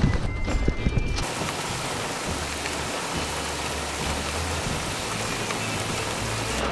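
Rain pouring onto a lake's surface, a dense, steady hiss that sets in about a second in, after a short steady beep.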